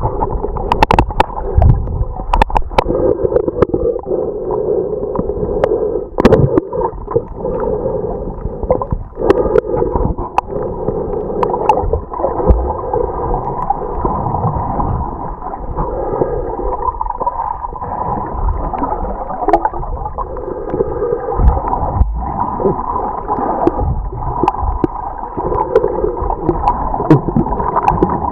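Seawater heard from underwater: a steady, muffled gurgling rush with no high end, broken by scattered sharp clicks and knocks.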